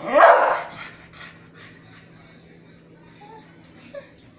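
A beagle gives one loud bark that rises in pitch at the very start, the last of a string of demanding barks, then falls quiet apart from a few faint short sounds near the end. The dog is begging, desperate for something out of reach on the counter.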